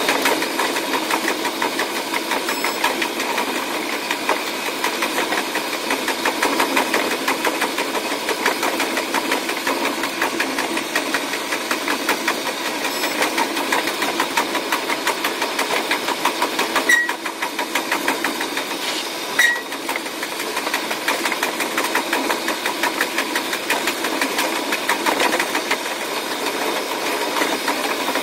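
KiHa 185 series diesel railcar running, its engine and running noise sped up into a fast, even chatter. Two brief high chirps come about two-thirds of the way through.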